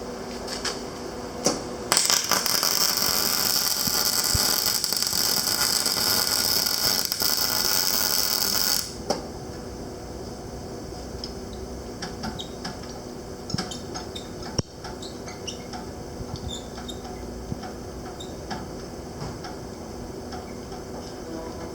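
Panasonic YD-160SL7 semi-automatic (MIG) welder making a test weld. The arc hisses and crackles for about seven seconds, starting about two seconds in and cutting off suddenly, over the machine's steady hum. Scattered small ticks follow.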